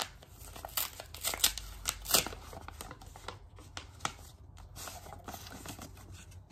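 A paper envelope being torn open and its contents pulled out: irregular paper crackling and rustling, sharpest about one and a half to two seconds in, then lighter rustles.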